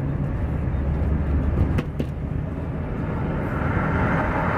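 Road and engine noise inside a moving car: a steady low rumble while it passes a heavy truck running alongside, with two sharp clicks just under two seconds in.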